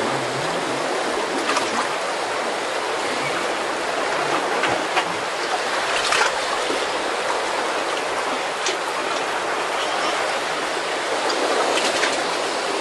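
Steady rush of churning sea water and waves, with a few brief louder splashes through it.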